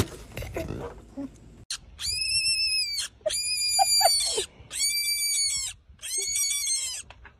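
Baby rabbit screaming four times: shrill, high-pitched screams about a second each, with short pauses between.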